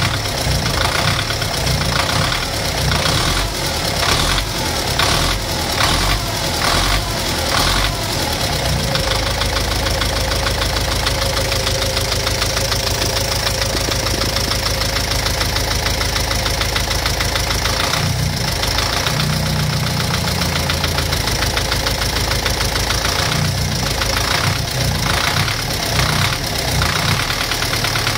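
Car engine with a knock, revved in short blips several times over the first eight seconds, then idling steadily, with another rise in revs about eighteen seconds in and a few more blips near the end.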